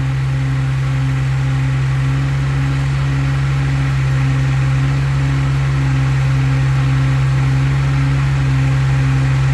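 A heavy engine running steadily at a constant speed: a low hum with a regular throb about three times a second.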